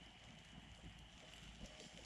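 Near silence: faint outdoor ambience with a low rumble, a faint steady high tone and scattered soft clicks.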